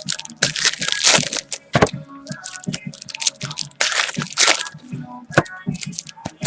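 Trading-card pack wrappers being torn open and crinkled by hand, a run of irregular sharp cracks and rustles.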